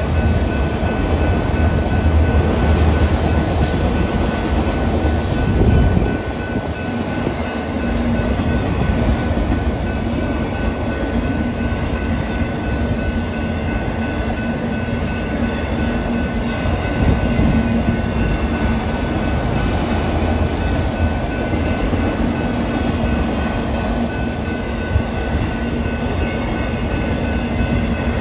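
Union Pacific manifest freight train's autorack cars rolling steadily past a grade crossing, steel wheels running on the rails in a continuous rumble.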